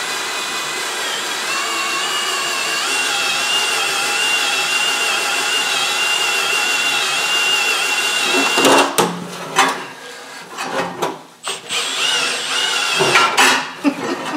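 A cordless drill spins a Lisle 15000 cylinder hone in the rusty bore of a 12 hp Briggs & Stratton engine, honing it out to ten thousandths oversize. The drill gives a steady whine that stops suddenly about nine seconds in. After that come irregular clanks and knocks of metal tools being handled.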